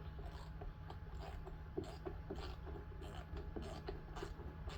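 Faint, irregular small metallic clicks and scrapes of hand tools and engine parts being handled during the teardown of a small Briggs and Stratton engine, over a low steady hum.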